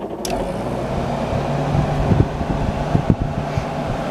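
Aging Maytag window air conditioner running with a steady, loud hum, broken by irregular rattling knocks. The unit is in rough shape and, to the owner's ear, close to failing.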